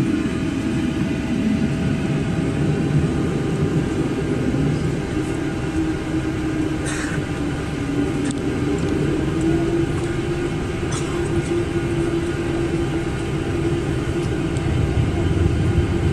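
Cabin noise of a Boeing 777 taxiing: a steady engine hum over a low rumble, with one tone that rises slightly about seven seconds in and then holds, and a few faint clicks.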